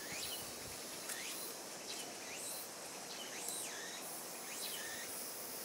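Summer garden ambience: a steady high hiss of insects, with a short high call sweeping down in pitch repeated about once a second, most like a bird calling.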